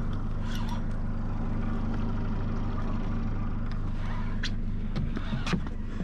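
Boat's outboard motor idling steadily, with a couple of light clicks near the end.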